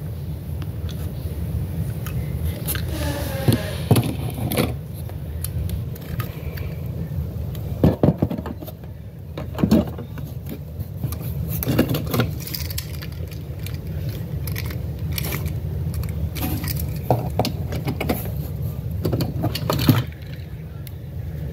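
Diecast toy cars clinking and rattling against one another as they are handled in a cardboard box, with scattered sharp clicks and scrapes over a steady low hum.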